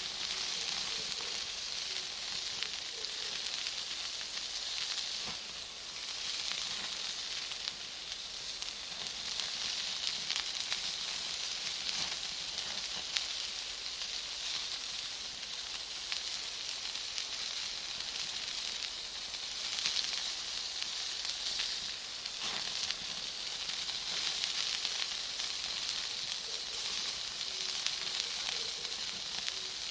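Bonfire of Iwate cut charcoal and firewood burning: a steady hiss with many small crackles and pops from the charcoal.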